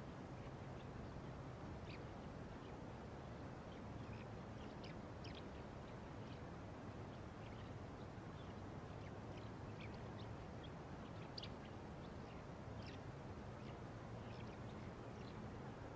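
Faint, scattered short bird chirps over a steady low hiss and rumble of open-air background noise.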